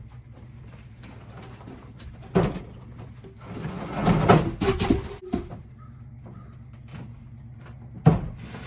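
Firewood logs knocking and scraping against each other and the truck bed as they are pulled out. There is a sharp knock early on, a cluster of knocks and a short squeaky scrape in the middle, and one more sharp knock near the end.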